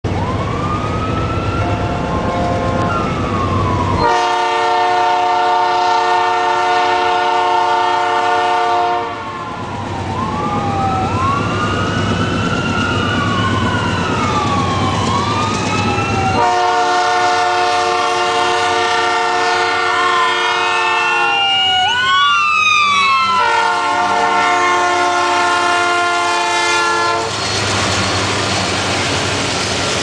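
A Union Pacific locomotive's Nathan P3 three-chime air horn blows three long blasts, taking turns with an ambulance siren wailing up and down in pitch. About two-thirds of the way through, the siren's pitch drops as the ambulance passes. After the last blast, the train rumbles by.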